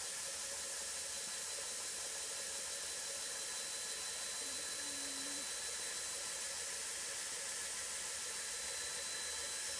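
A 3D-printed ion motor running and driving a 3D-printed generator: a steady hiss with faint, constant high whine tones.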